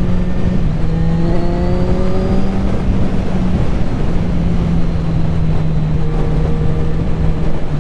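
Kawasaki Z1000 inline-four engine running under way. Its note rises in the first few seconds as it accelerates, then settles to a steady cruise, over steady wind rush.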